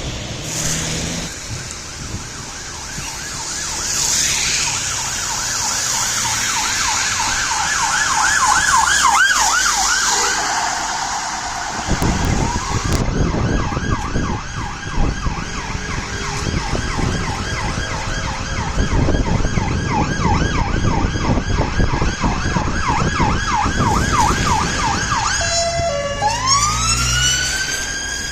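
London police car siren on fast yelp, several rising-and-falling sweeps a second, over traffic noise. Near the end it switches to a slower wail, one long rise and fall.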